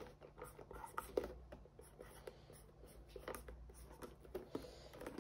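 Sharpie marker writing words in a run of faint, short, irregular scratching strokes.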